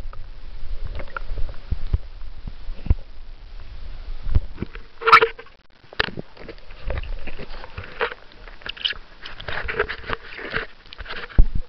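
Camera handling noise and water splashing as the camera is dipped at the kayak's side, with irregular knocks and bumps throughout and a louder splash-like burst about five seconds in.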